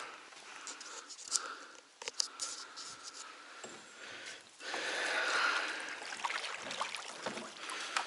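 Oars of a small rowboat dipping and pulling through lake water in uneven splashing surges, the biggest about five seconds in, with a few sharp knocks from the oars in their oarlocks.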